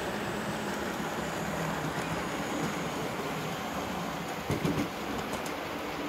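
Hornby OO gauge model steam locomotive and its coaches running past on the track: a steady rumble of wheels and mechanism. A brief louder knock comes about four and a half seconds in, followed by a few light clicks.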